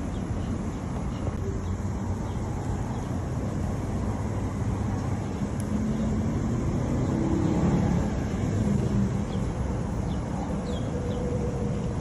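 Steady low rumble of outdoor background noise, a little louder for a couple of seconds past the middle, with a few faint high chirps near the end.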